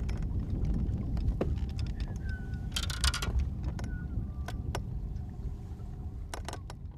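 Wind rumbling on the microphone on an open boat, with scattered light clicks and two short high chirps; it fades out near the end.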